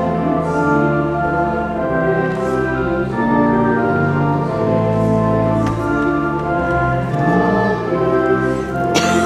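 Church organ playing slow, sustained chords.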